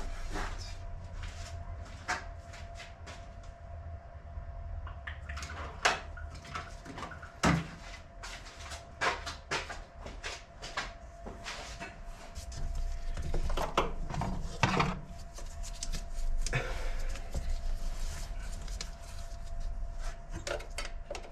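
Scattered clicks and knocks of hand tools and parts being handled while engine-bay connections are undone, irregular and a few seconds apart, over a faint steady hum.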